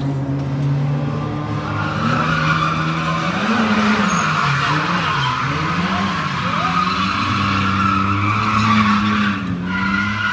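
Mostly stock automatic, open-diff BMW E46 drifting: the engine note rises and falls as the throttle is worked, and the tyres squeal steadily from about two seconds in, breaking off briefly near the end.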